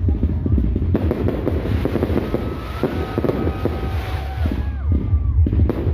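Fireworks crackling densely, with several thin whistles that glide and hold about two to four seconds in, under a heavy wind rumble on the microphone.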